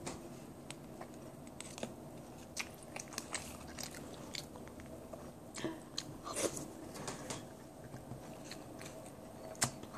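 A person chewing a mouthful of crunchy cereal close to the microphone: irregular crunches and small clicks, a few louder ones near the middle and end.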